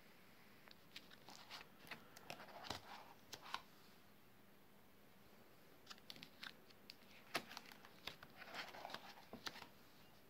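Clear plastic sleeve pages of a ring binder being turned, crinkling and clicking, in two bursts: one starting about a second in and another around six seconds in.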